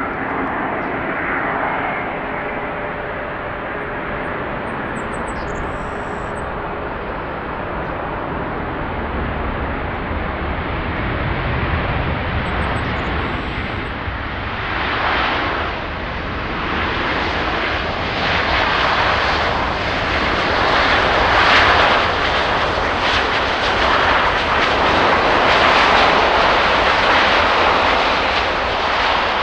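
Airbus A350-941 jet airliner on arrival, its Rolls-Royce Trent XWB engines making a steady rushing noise that swells louder about halfway through and stays loud.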